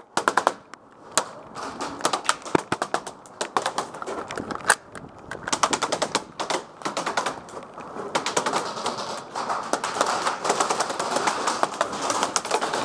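Airsoft BBs pelting the wooden walls of a fort, heard as a rapid, irregular clatter of sharp clicks: incoming fire on a player taking cover. The clatter starts abruptly and keeps up.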